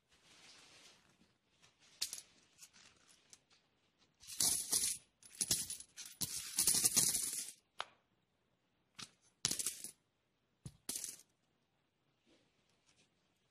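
Euro coins poured out of a small fabric coin purse onto a cloth-covered surface, clinking and jingling against each other. After a soft rustle of the purse being handled and a few light clicks, the coins come out in two dense runs about four and five seconds in, then a few last coins clink down one or two at a time near the end.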